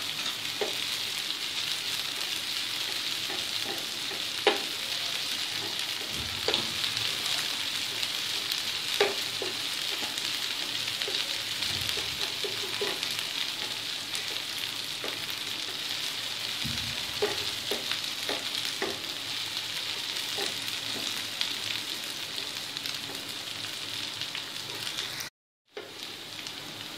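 Chopped onions and crushed green chillies sizzling steadily in hot oil in a nonstick frying pan, with a wooden spatula stirring and now and then knocking against the pan. The sound cuts out for a moment near the end.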